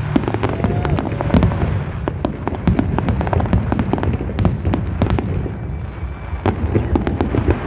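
Aerial fireworks display bursting overhead: a rapid, dense run of bangs and crackles over a low rumble, with a brief lull about six seconds in.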